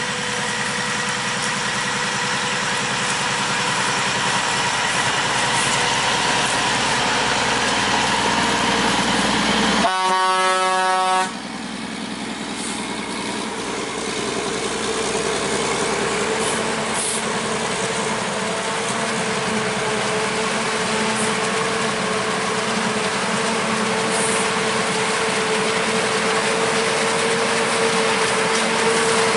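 Heavy farm machinery running steadily with a held whine. About ten seconds in, a horn blasts once for a little over a second.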